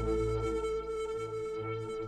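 Instrumental background music: held notes over a soft repeating low pulse, getting gradually quieter.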